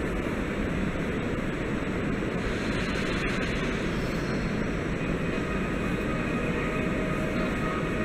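Koleje Śląskie electric multiple unit pulling out on departure: a steady train rumble, with a few steady whining tones joining in about halfway through.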